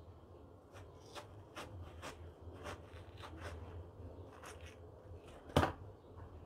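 Kitchen knife cutting through watermelon on a plate: a series of short crisp cuts, about two a second, then one much louder knock about five and a half seconds in as the knife or a piece hits the plate.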